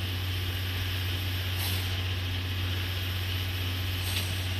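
C11 steam locomotive standing at the platform, giving off a steady low hum with an even hiss over it.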